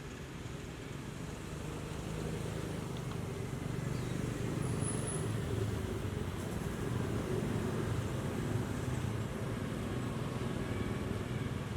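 A motor vehicle's engine running steadily, getting louder over the first few seconds and then holding.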